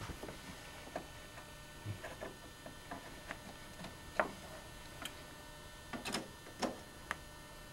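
Scattered light clicks and taps, irregularly spaced, from computer parts and cables being handled during a PC build.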